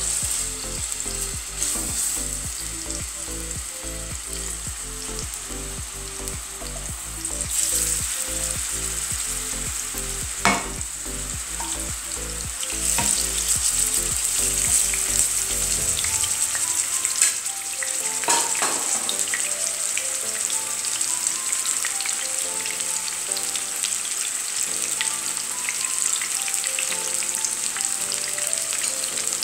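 Seasoned chicken breast slices sizzling as they fry in olive oil in a non-stick frying pan, growing a little louder as more pieces go in. A few sharp clicks of the fork against the pan.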